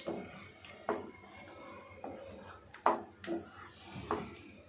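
Utensil scraping and knocking against a heavy-bottomed pan as thick, sticky wheat halwa is stirred, with a handful of short irregular knocks.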